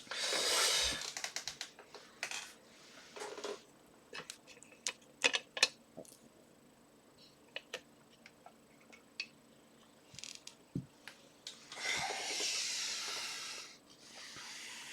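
Scattered small metallic clicks and taps of a Trioving pin-tumbler lock and its picking tools being handled. There is a long breathy exhale at the start and another about twelve seconds in.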